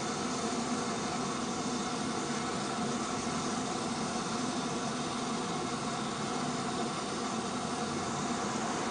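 Caledonian Railway No. 123 steam locomotive standing with steam hissing steadily, with no exhaust beats.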